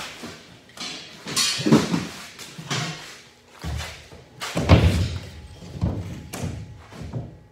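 Several heavy thumps and knocks from drywall being handled and pushed up against the ceiling joists, the loudest about two-thirds of the way through.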